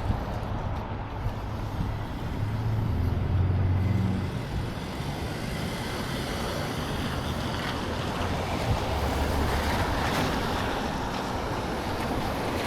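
Outdoor noise of passing cars, with low rumbling swells of wind buffeting the microphone a couple of times.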